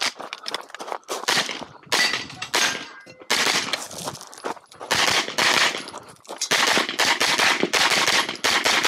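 Semi-automatic pistol-caliber carbine fired in fast strings of shots, with short breaks between strings.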